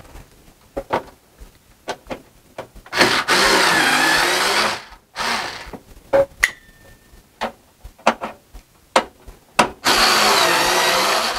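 Cordless electric screwdriver running in two bursts of about one and a half to two seconds, its motor pitch wavering under load as it backs screws out of a computer case's metal panel. Sharp clicks and taps of metal parts being handled fall between the bursts.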